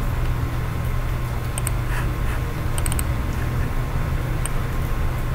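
A few light computer mouse clicks over a steady low hum.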